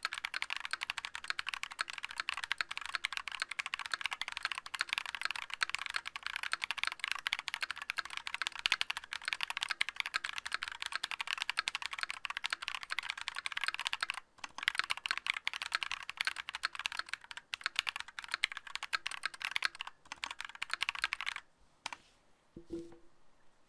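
Continuous typing on a mechanical keyboard with lubed Holy Panda tactile switches (YOK Trash Purple housings with Halo True stems) and clipped, band-aid-modded stabilizers. The typing pauses briefly about two-thirds in and stops a couple of seconds before the end, leaving a few faint clicks.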